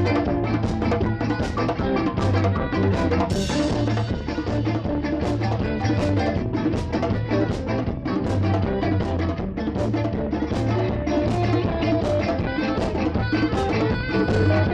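A live band playing, poorly recorded: a drum kit keeps a regular beat over a pulsing bass line, with a cymbal crash about three seconds in.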